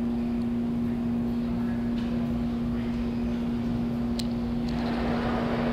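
A steady low machine hum, one constant pitch, over a low rumble of room noise. A wider hiss of noise rises near the end.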